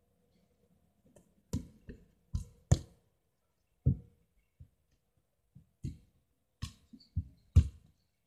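A run of irregular, sharp thuds close to the microphone, the last and loudest being the thump of a football struck in a shot at goal.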